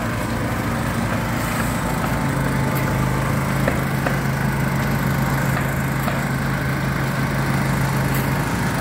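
Concrete mixer's small engine running steadily. From about two seconds in, the electric winch of the mini-crane hoist hums steadily as it lifts a bucket of concrete, stopping just before the end.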